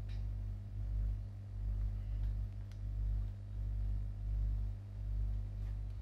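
A steady low electrical hum with no voices, and a few faint clicks.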